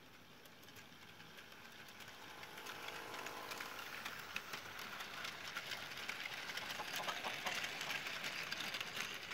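A 00 gauge model train with a goods train of wagons running past close by: the wheels clatter with fast clicks over the track and rail joints, and the locomotive's small electric motor hums faintly as it goes by. The sound grows louder over the first few seconds as the train comes up to the microphone, then stays level while the wagons roll past.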